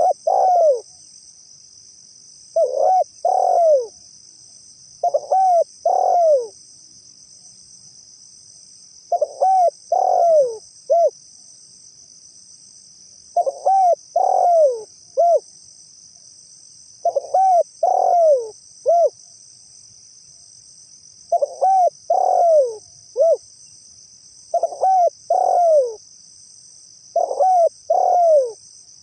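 Spotted dove (tekukur) cooing: phrases of two or three arched coos, some ending in a short clipped note, repeated about every three to four seconds. A steady high insect chirring runs underneath.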